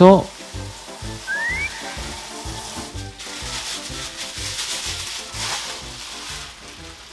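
Tap water running over oysters in a clear plastic bag as they are rinsed by hand, with the plastic crinkling as the bag is squeezed and turned. Background music plays underneath.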